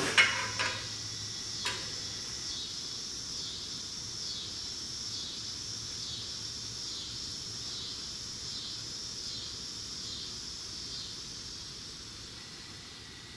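A few sharp metal clinks in the first two seconds as steel mounting brackets and a hand tool are knocked against the radiator and fan shroud, over a steady high-pitched hiss that carries on throughout.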